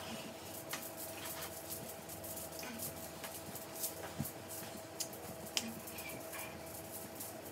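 Quiet room tone with a steady faint hum and scattered light clicks and taps.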